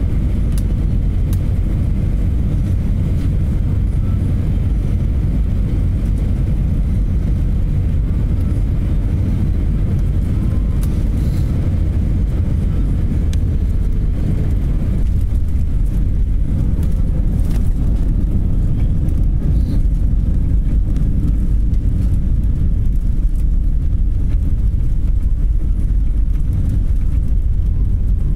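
Cabin noise of an Airbus A320 over the wing, heard through its landing: a steady low rumble of engines and airflow. It grows a little louder about halfway through as the jet touches down and rolls out on the runway with its spoilers raised.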